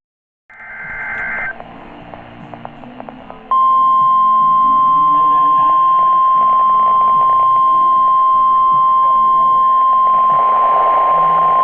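NOAA Weather Radio alert signalling a warning. A short burst of the SAME digital header, a buzzy two-pitch data chirp about a second long, comes first. About three and a half seconds in, the steady 1050 Hz warning alarm tone starts and holds loud to the end; it announces the severe thunderstorm warning that is read next.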